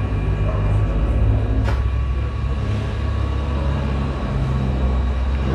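Steady low motor hum of a wheel-straightening machine spinning a repaired alloy wheel, with a single click nearly two seconds in.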